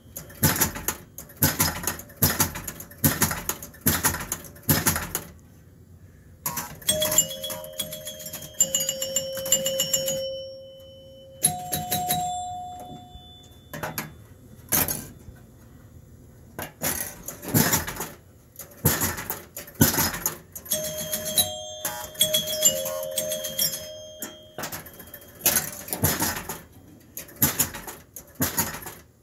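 Gottlieb Cleopatra electromechanical pinball machine in play: a steady run of sharp mechanical clacks from its score reels, relays and flippers. Its scoring chimes ring out in clusters about a third of the way in and again past the middle as points score.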